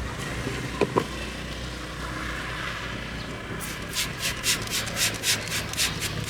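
Two sharp clicks about a second in, then rhythmic scrubbing strokes, about three a second, as a brush works a car surface, over a low steady hum.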